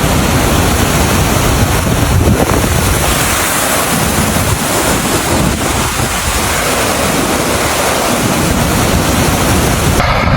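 Storm wind buffeting the microphone: a loud, steady rush of noise with a fluttering rumble underneath, changing abruptly near the end.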